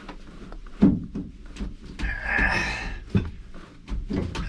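A series of knocks and clunks, the loudest about a second in and another about three seconds in, with a scraping sound between them.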